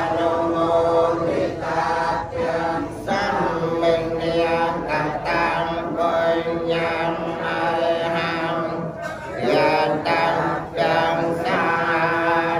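Buddhist monks chanting Pali verses in unison. It is a steady, drawn-out recitation on held pitches, with a few brief breaks.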